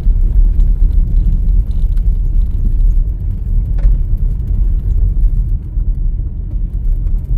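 Steady low rumble of a car driving, road and wind noise with no other distinct events.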